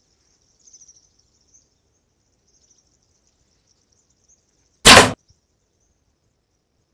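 A single loud, sharp shot about five seconds in. Faint high insect chirring runs underneath.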